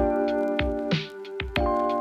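Background music: an electronic keyboard tune with a steady drum beat.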